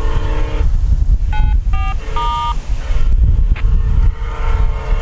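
A distant train horn sounds a chord in long blasts: one blast ends about half a second in and another begins near the end. Three short, higher single tones come between them. Wind buffets the microphone throughout.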